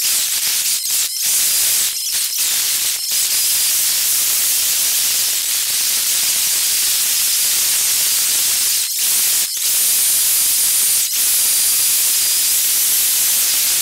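Steady rushing wind noise on a camera mounted on a moving motorcycle, a loud even hiss with several very brief dropouts.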